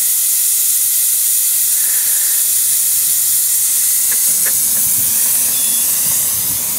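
5-inch gauge live steam locomotive venting a loud, steady hiss of steam from its open cylinder drain cocks as it moves off.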